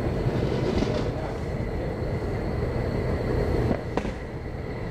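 Steady low rumble of outdoor background noise with a faint hum running through it, and a light click about four seconds in.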